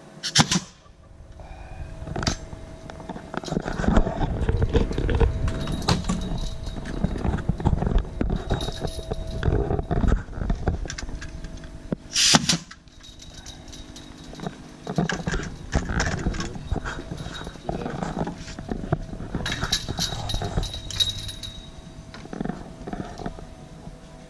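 Pneumatic coil nailer firing sharply into a wooden fence picket right at the start, and a second sharp shot about halfway through, with irregular knocking and handling noise between over a faint steady hum.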